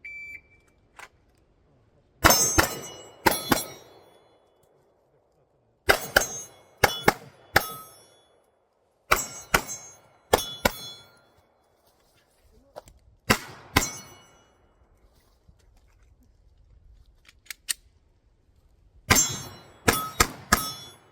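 A shot timer's short beep, then about twenty pistol shots fired in quick clusters of two to four, spread out with pauses of a few seconds between clusters. Steel targets ring after the shots.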